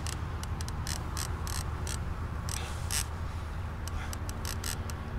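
Heavy fishing reel clicking and ratcheting unevenly, several clicks a second, as line is worked under load from a large white sturgeon. A steady low hum runs underneath.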